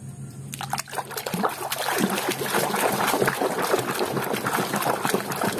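A hand swishing and scrubbing a mud-coated plastic toy animal in a plastic basin of water, with continuous irregular splashing. The splashing starts about half a second in.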